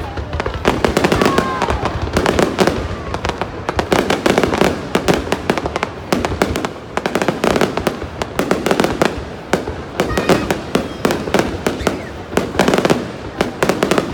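Aerial fireworks display: a dense, unbroken barrage of shell bursts and crackling, several bangs a second.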